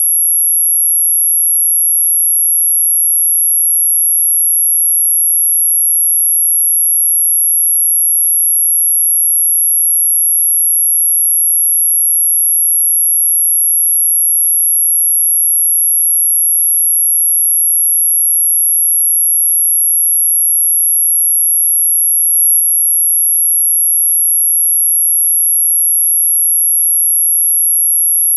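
A single steady, very high-pitched electronic sine tone, played as an anti-mosquito repellent sound, holding one unchanging pitch throughout.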